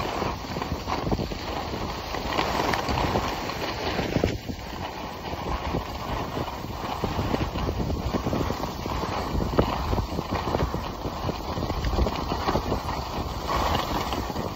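Skis sliding and scraping over packed snow, a continuous crunching chatter, with wind rumbling on the microphone.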